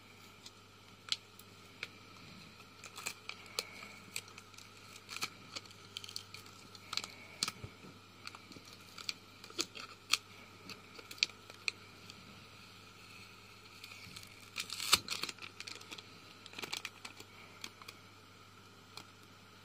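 A foil seal being picked at and peeled off the rim of a clip-top glass jar: scattered fingernail clicks and crinkling foil, with a louder burst of crackling about fifteen seconds in.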